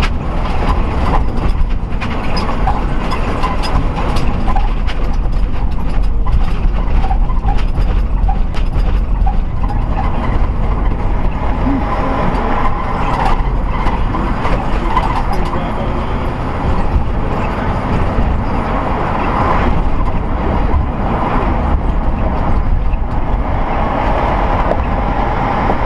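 Steady road and engine noise inside a car's cabin as it drives in traffic and picks up speed.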